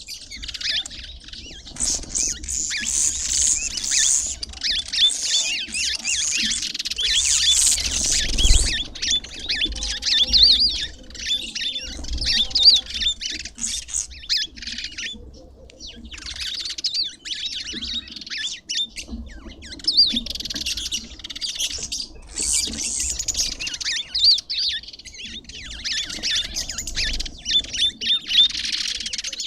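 Many small birds chirping and squawking in rapid, overlapping calls, with a brief lull about halfway through and a low thud about eight seconds in.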